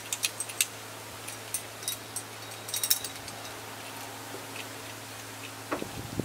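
Light metallic clicks and clinks of a hand-ratchet come-along being loosened and its hook and chain handled, with a quick run of clicks about three seconds in. A steady low hum sits underneath, and a louder low rustle starts just before the end.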